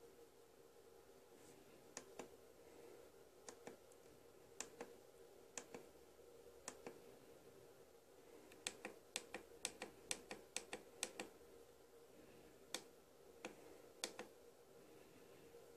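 Push buttons on a FrSky Taranis Plus RC transmitter clicking as its menus are stepped through: scattered single clicks, then a quick run of about ten clicks a little past the middle, a few more near the end. A faint steady hum sits underneath.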